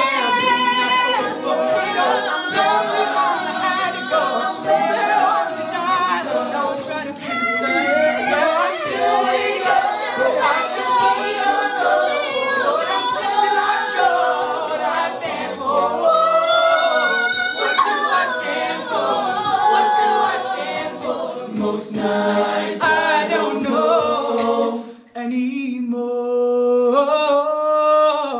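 Mixed-voice a cappella group singing, a lead voice over wordless backing chords and a steady percussive beat. About 25 seconds in the sound breaks off for a moment, and the group then holds sustained chords without the beat.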